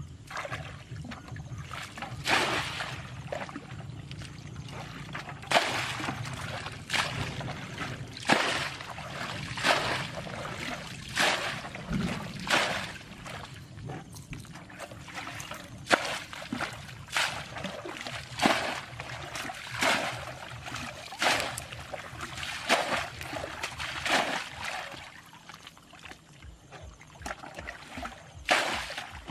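Water being bailed out of a dammed, muddy ditch with a plastic bucket: a splash of thrown water about every second and a half, over a low steady rush.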